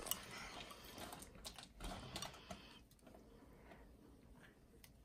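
Faint, quick irregular clicks and scrapes of a fork stirring a baking soda and water paste in a bowl, dying away after about three seconds.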